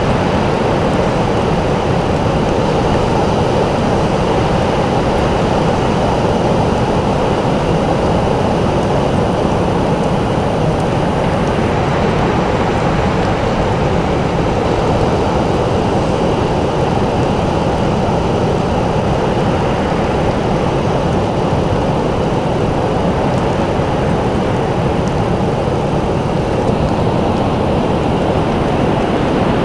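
Continuous wash of ocean surf, a dense steady rushing noise that swells and eases gently, with no distinct breaks or other events.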